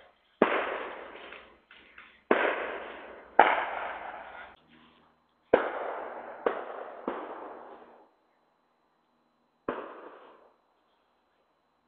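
A series of about seven loud, sharp bangs at irregular intervals over the first ten seconds, each followed by a decaying echo.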